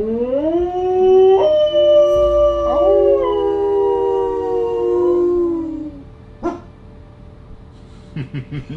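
Long howling from more than one voice: the howls slide up together, hold steady for several seconds, then stop; a single sharp click follows.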